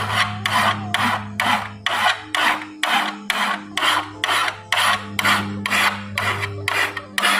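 Hand file rasping across the steel edge of a brush cutter blade being sharpened, in even back-and-forth strokes at about two a second.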